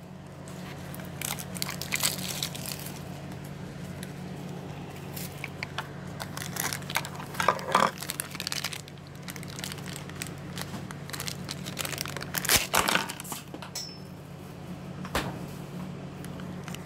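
Plastic toy packaging crinkled and torn open by hand, with irregular crackles and louder bouts of crinkling about eight and thirteen seconds in, over a low steady hum.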